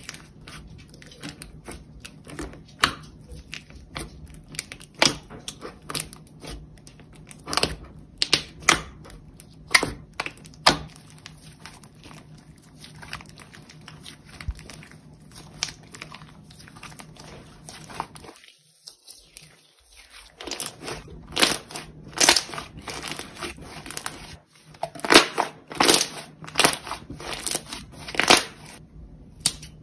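Hands kneading, stretching and pressing slime, making irregular sticky pops, clicks and crackles. The sound drops out briefly about two-thirds through, then the popping comes back denser and louder.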